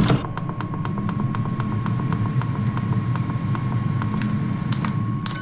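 Ninja dual-basket air fryer starting a bake, its fan running with a steady hum and a thin whine. Over it comes a run of quick regular clicks, about five a second, which stops shortly before the end.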